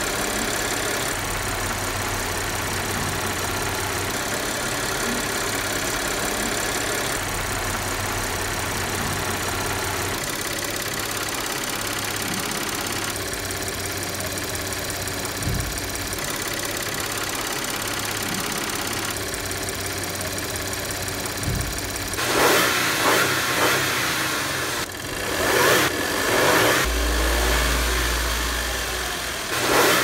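Audi V6 TFSI engine idling steadily with its mechanical clatter, untreated before an anti-friction oil additive. The noise turns louder and rougher in the last third, with irregular crackling.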